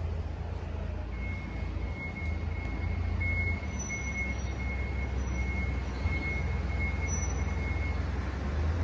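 Low, steady rumble of the Hino 300's idling diesel engine, with a high electronic warning beep pulsing repeatedly over it from about a second in until near the end.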